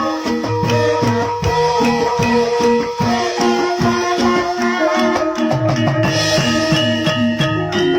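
Banyumasan gamelan music: an ensemble plays repeated metallophone notes and held tones over a steady beat of low drum strokes.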